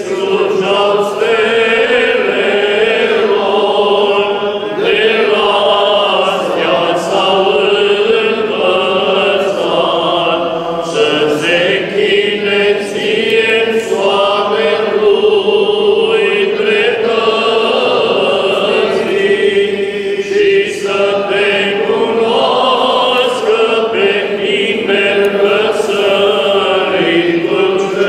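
Orthodox priests singing a church chant together, unaccompanied, the voices sustained without a break.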